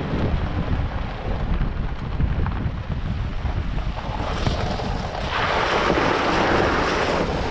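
Tyres rumbling over a gravel road with wind buffeting the microphone, then, a little past halfway, a loud rushing splash of water as the tyres drive through a large puddle.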